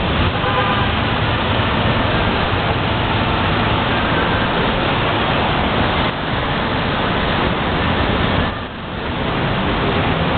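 Busy city street traffic: yellow taxi cabs and other cars driving past in a steady, dense wash of engine and tyre noise. The level dips briefly near the end.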